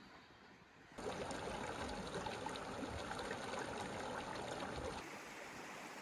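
Steady rush of water from the Gordale Scar waterfall and its beck. It starts suddenly about a second in and gets quieter about four seconds later.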